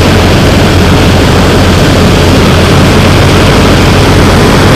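Hovercraft's liquid-cooled engine running at a steady idle, loud and low.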